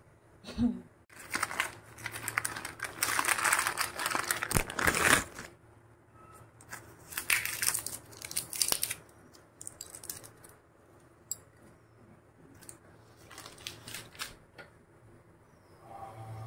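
Packaging or paper crinkling and rustling as it is handled, in a long spell starting about a second in and a shorter one a few seconds later, with scattered sharp clicks and knocks.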